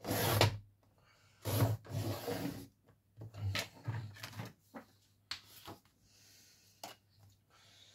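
Cardstock being slid and cut on a paper trimmer: a few short rough scraping and rubbing sounds of card across the board and the blade slider, then several light clicks in the second half.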